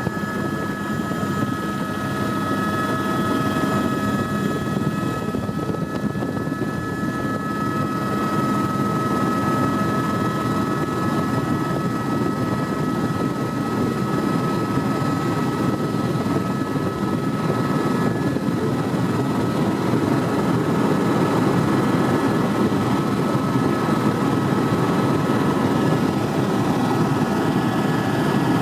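Helicopter in flight: a steady rotor and engine noise with thin, steady high whines above it, getting slightly louder about two-thirds of the way through.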